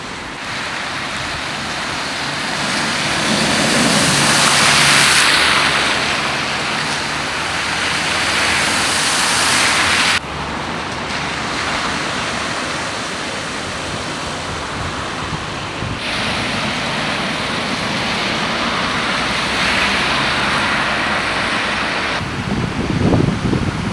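Car tyres hissing and splashing through floodwater on a wet road, the rushing noise swelling and fading as vehicles pass, with wind gusting on the microphone near the end.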